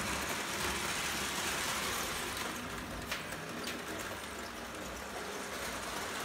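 Prewar Lionel O gauge electric toy train running on three-rail tinplate track: a steady rushing rumble of wheels and motor, with two sharp clicks about three seconds in.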